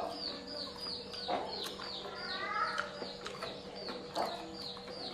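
Chickens calling: a steady run of short, high, downward-falling peeps, about three a second, with a longer rising call in the middle.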